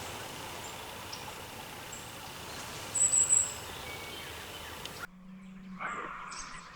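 Woodland birds chirping at dawn over a steady hiss, with a high, thin whistled call about three seconds in. After an abrupt change in the background, a low hum sets in and a hawk's squealing calls begin near the end.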